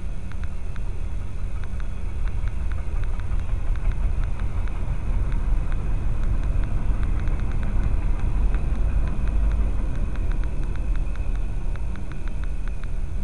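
Freight train cars rolling past, a steady low rumble that swells a little through the middle, with faint rapid ticking near the start and the end. Heard from inside a car's cabin.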